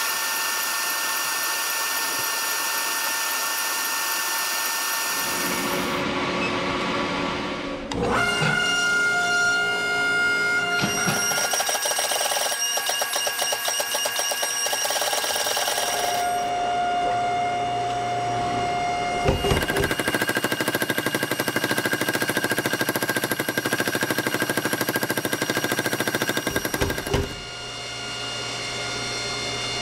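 Induction forge running with a steady high whine while it heats the steel spike. A mechanical power hammer then pounds the red-hot spike in fast runs of blows, drawing it out to length. Near the end, a quieter steady machine hum.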